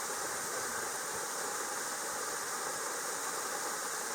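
Steady rush of creek water tumbling near a waterfall, an even hiss with no change in level.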